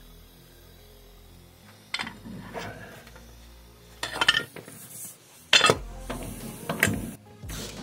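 Metal clinks and knocks of tools and mower blade-assembly parts being handled. One sharp clink comes about two seconds in, then a run of clinks from about four seconds on, the loudest near the middle.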